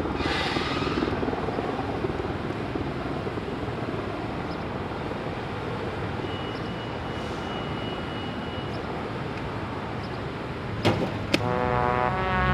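Downtown street ambience: a steady wash of traffic noise from passing vehicles. About eleven seconds in there are two sharp knocks, and then music with brass starts.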